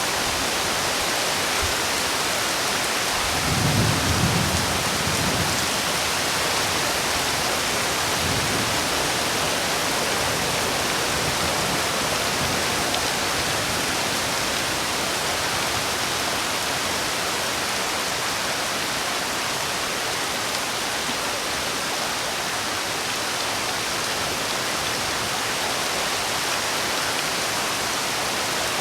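Heavy rain falling in a steady, even hiss, with a brief low rumble about three seconds in and a fainter one a few seconds later.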